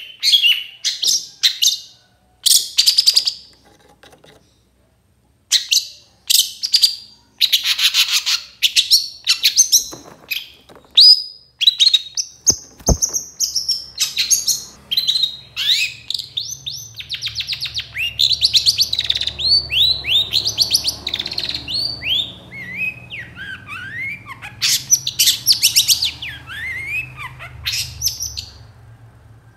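Long-tailed shrike (cendet) singing loudly in rapid, harsh chattering phrases. Quick falling notes run together after short pauses in the first few seconds.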